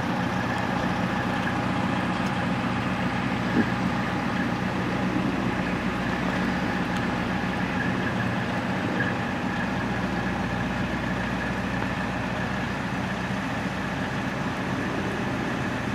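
Fire trucks' engines idling steadily, a continuous even hum.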